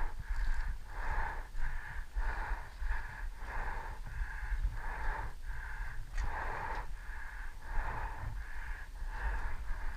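A person panting heavily and fast, about two breaths a second, with a wheezy edge, close to the microphone, over a low rumble.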